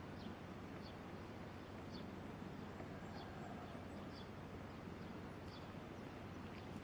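A small bird chirping faintly, one short high chirp about every second, over steady low background noise.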